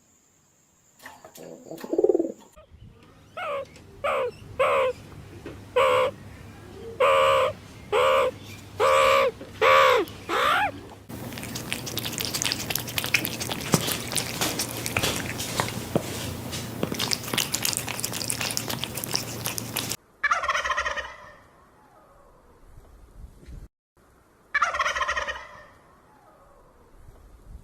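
Animal calls, most likely a bird's: a run of about eight short pitched calls about a second apart, then a stretch of dense noisy calling, then two separate calls that fall in pitch.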